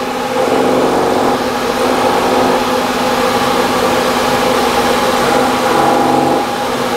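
Milling machine running, its end mill cutting the edge of a copper soft vise jaw: a steady machine sound with several steady tones.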